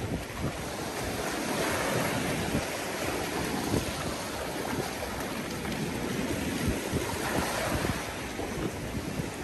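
Small waves washing onto a sandy shore in a steady rush of surf, with wind buffeting the microphone.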